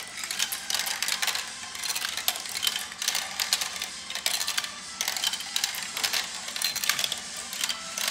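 Marbles rattling and clicking down the plastic tracks and funnels of a marble run: a dense, continuous clatter of many small clicks.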